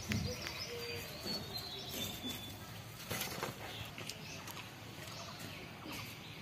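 Woven plastic cement sack rustling and crackling as manure is shaken out of it over a seedling, loudest about three seconds in, with birds chirping in the background.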